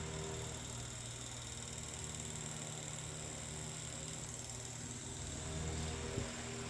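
Circa 1910 Eck Tigre Hurricane ball-motor fan running: a steady motor hum with a steady rush of air.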